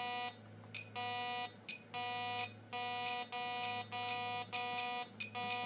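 Menvier TS690 intruder alarm system sounding a repeated electronic beep: about seven evenly spaced tones of about half a second each, a little more than one a second, with a few short clicks between some of them.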